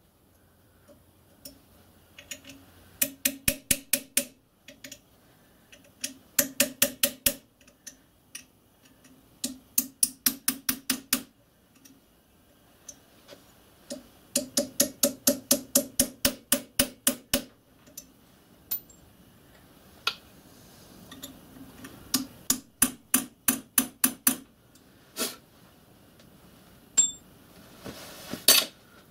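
Small ball-pein hammer tapping a punch in quick runs of light, ringing metal-on-metal blows, about five or six a second, with pauses between the runs and a few single taps. The punch is transferring hole centres into cast-iron steam cylinder parts.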